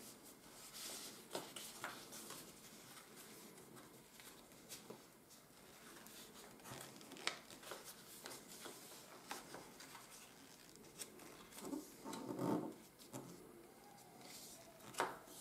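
Faint rustling and crackling of coated paper being folded and creased by hand on a tabletop, broken by scattered small clicks. There is a somewhat louder stretch of rustling just after twelve seconds in.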